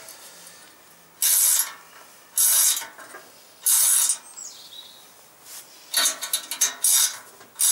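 Ratchet spanner clicking in several short bursts of strokes as it tightens the nut on a threaded-rod press, drawing a new tapered bearing race into a steering head tube. The strokes come about once a second at first, then quicker near the end.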